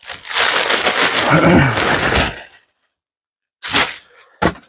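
Loud crinkling, rustling handling noise close to the microphone for about two and a half seconds, then two brief sounds near the end.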